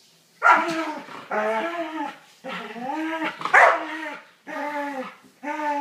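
Dog play vocalizations during rough play between two dogs: about six drawn-out, whiny barks in quick succession, each under a second, bending up and down in pitch.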